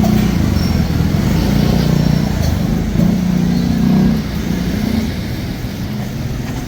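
Street traffic: a motor vehicle's engine running close by, a steady low rumble that eases a little after about four seconds.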